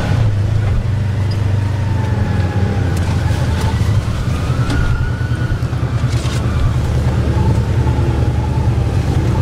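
Side-by-side UTV engines running at low trail speed: a steady low drone with a thin whine above it that wavers slightly in pitch. A few sharp knocks come through, two a few seconds in and more a little after the middle.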